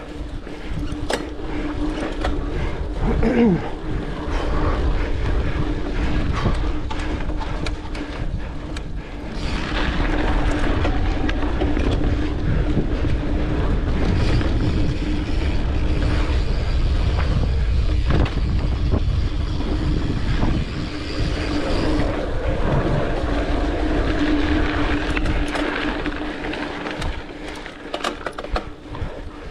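Mountain bike ridden along a dirt trail: a continuous rumble of the ride, broken by frequent clicks and knocks as the bike goes over bumps.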